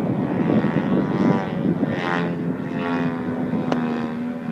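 Large gas-powered model aeroplane in flight, its twin-cylinder DLE 111 engine and propeller drone rising and falling in pitch as the plane manoeuvres, with wind rumbling on the microphone. A single sharp click is heard near the end.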